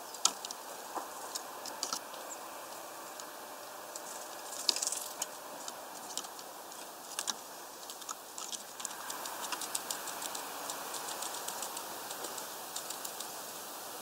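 A great tit pecking and rummaging among seed at a feeder: irregular sharp clicks and taps, sparse at first and coming quicker from about two-thirds of the way in.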